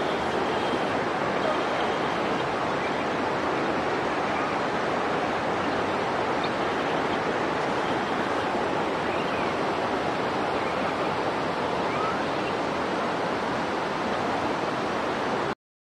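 Steady rushing of flowing water, with a few faint short high chirps over it. It cuts off suddenly near the end.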